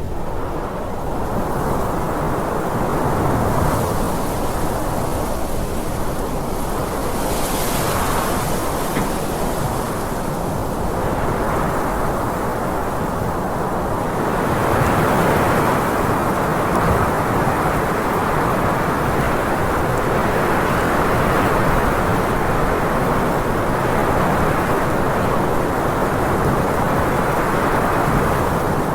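Strong mountain wind blowing in gusts: a continuous rush that swells and eases, with a few higher hissing gusts in the first eight seconds and somewhat louder from about halfway.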